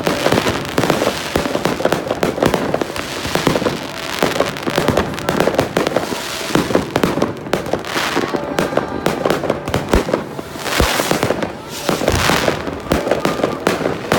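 Many fireworks going off close by in rapid, overlapping succession: a dense, unbroken stream of bangs, pops and crackling from rockets and fountains.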